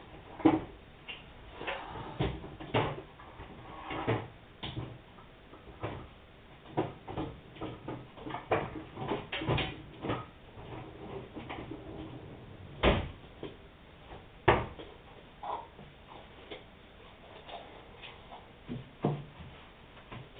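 Irregular knocks, clicks and bumps of washing machine parts being handled, with two sharper knocks about two-thirds of the way through.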